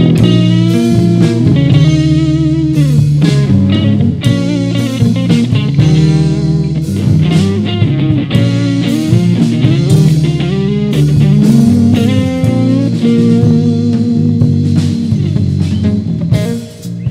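Live rock band playing an instrumental break: an electric guitar lead with bent, wavering notes over bass guitar and a drum kit.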